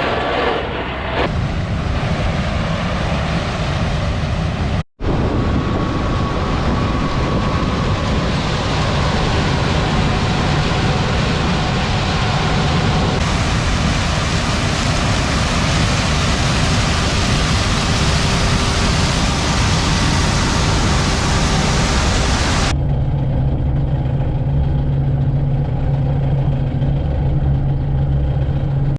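Heavy farm machinery, tractor and harvesting equipment, running loudly in a series of clips that cut abruptly from one to the next. The sound drops out for an instant about five seconds in, and near the end it changes to a steadier low engine hum.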